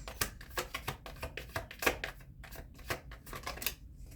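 Tarot cards being shuffled by hand: a quick, irregular run of short papery snaps and slides that stops shortly before the end.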